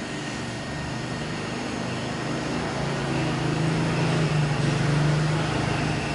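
Steady machine-like whooshing noise with a low hum that grows louder in the middle and then eases off.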